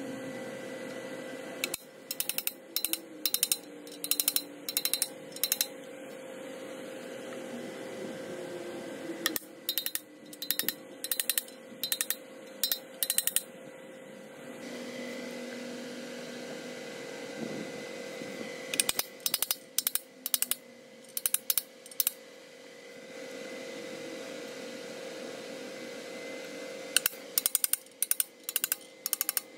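Hammer striking a steel plug driver to seat brass core plugs into a Ford 351 Windsor cast-iron engine block: four bursts of rapid sharp taps, several a second, over a steady shop hum.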